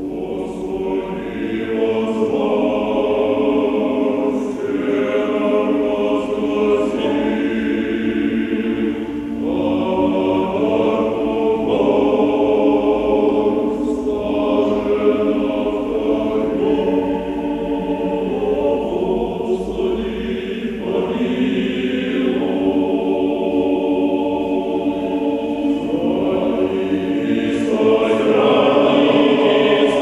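Men's choir singing a modern Orthodox spiritual song, unaccompanied, in sustained phrases a few seconds long, swelling louder near the end.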